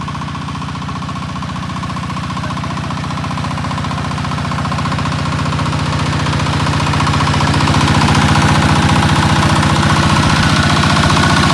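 DTZ 160 mototractor's single-cylinder diesel running steadily under load while pulling and driving its rotary tiller, with an even, fast knocking beat. It grows louder over the first two-thirds, then holds.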